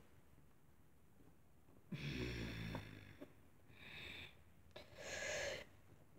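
A person making quiet breathy vocal effects to voice a toy figure: a low, rough breath about two seconds in, then two short hissing breaths.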